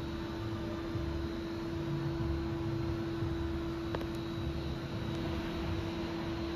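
Powered-up Haas VF-2SS CNC vertical machining center humming steadily at idle, one constant tone over a low rumble and hiss, with a single sharp click about four seconds in.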